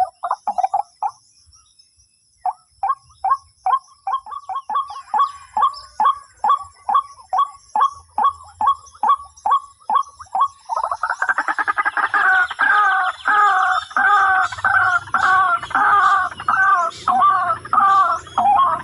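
White-breasted waterhen calls. After a short call and a gap of about a second comes a long run of short clucking notes, about two or three a second; then, about eleven seconds in, a louder, fuller repeated call takes over, about two a second.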